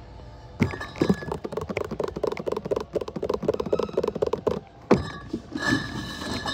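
Glass beer bottles in 24-bottle cardboard cases being handled while a pallet is stacked. A knock about half a second in is followed by a few seconds of rapid rattling and clinking of bottles jostling in their case. A second knock comes near the five-second mark, then a few more clinks.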